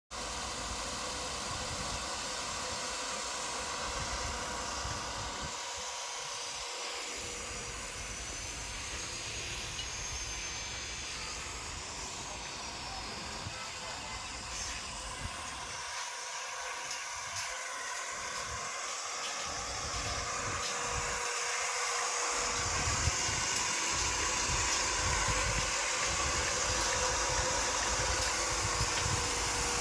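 Commercial reverse-osmosis plant running: a steady pump-motor hum with a hiss of water under pressure, growing somewhat louder about two-thirds of the way in.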